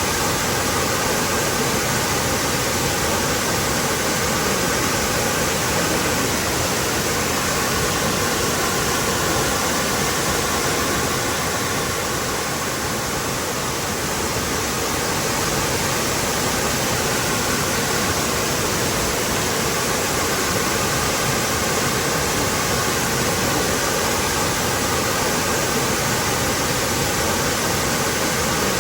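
Waterfall pouring steadily: an even, full rush of falling water without pause.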